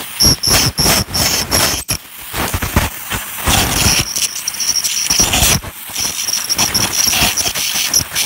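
Ultrasonic dental scaler working on a dog's teeth to remove tartar: a high-pitched whine that cuts in and out as the tip touches and leaves the teeth, over scratchy chattering from the tip on the tooth. The whine is mostly absent for a couple of seconds around the middle, then runs steadily again.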